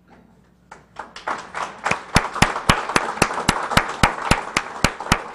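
Audience applauding, building up about a second in, with one nearby person's sharp, regular hand claps at about four a second standing out over the crowd.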